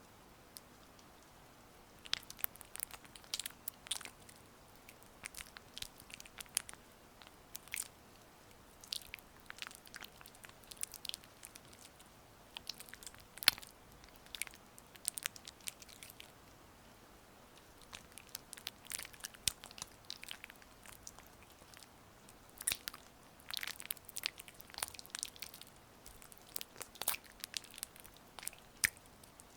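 Gua sha massage tool working over oiled facial skin: irregular bursts of short sharp clicks and crackles with brief pauses between strokes.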